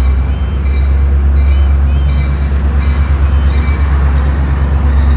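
Metra MP36PH diesel-electric locomotive approaching with its train, its engine and the train a loud, steady low rumble.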